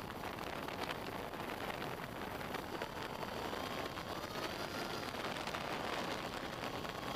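Steady wind rush and propeller noise picked up by a camera riding on a radio-controlled aircraft in flight, with a faint motor whine that rises slightly in pitch about three seconds in.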